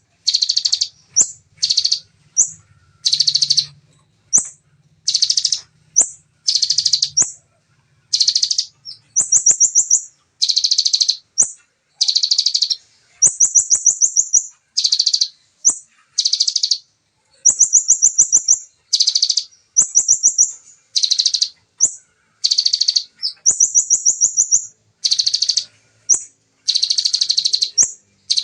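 Bar-winged prinia (ciblek) singing in rapid 'zepper' trills: short bursts of tightly packed notes, about one a second. Some bursts are higher and thinner, others lower and fuller.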